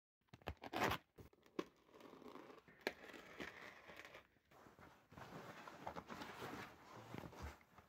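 Box cutter slicing into white foam packing wrap, with the wrap crinkling and rustling as it is cut and pulled open, and a few sharp clicks and knocks, the loudest about a second in.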